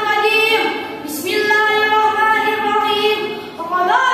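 A boy's unaccompanied voice singing in long held notes, with short breaks between phrases about one second and three and a half seconds in.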